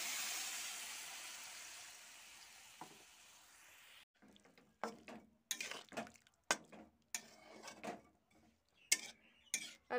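Water hitting hot oil and spices in a steel pan, sizzling loudly, then fading over about four seconds as it settles to a simmer. From about four seconds in, a spatula stirs moringa drumstick pieces in the pan, making a run of short, irregular scrapes.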